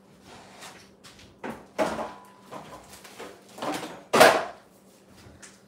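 Kitchen handling sounds: a few short knocks and rustles as things are moved about at the stove, the loudest about four seconds in.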